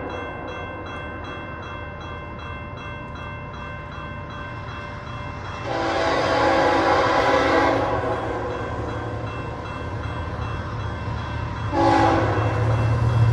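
Canadian Pacific freight train led by a GE AC4400CW locomotive sounding its horn for a level crossing: one long blast about six seconds in and a short one near the end. Under it the crossing bell rings steadily, and the diesel's low rumble grows as the train nears.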